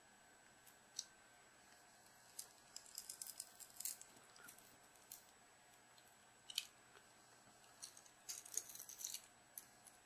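Faint, scattered crackles and clicks of shattered digitizer glass being peeled away from a heated phone LCD, the softened adhesive letting it come off in pieces. There is a busier run of crackling about three seconds in and again near the end.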